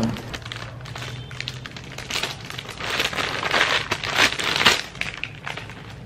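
Thin plastic packaging crinkling as it is handled and unfolded, in several bursts of rustling between about two and five seconds in.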